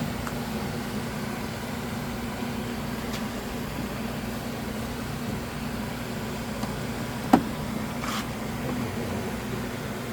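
Steady low hum under hands working on the door, with a single sharp click a little past seven seconds in and a faint short rustle about a second later.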